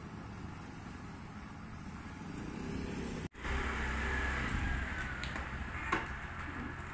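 Small motor scooter engine running as it rides towards the listener, growing slightly louder. After an abrupt break about three seconds in, it runs louder and closer with a faint falling whine as it pulls up.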